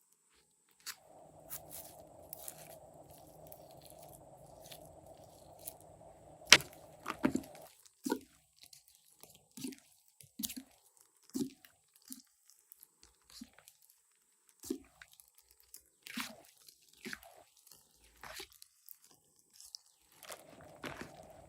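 Slime being squeezed and pressed by hand: irregular sticky pops and crackles, with one sharp snap about six and a half seconds in. A steady background hum drops out about eight seconds in and returns near the end.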